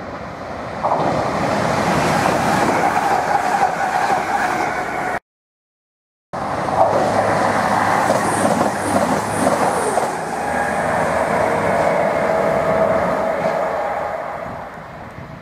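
CrossCountry Voyager diesel multiple unit passing at speed: underfloor diesel engines running with steady wheel-on-rail noise and a few short high chirps from the wheels. The sound breaks off to silence for about a second, five seconds in, then resumes and fades near the end.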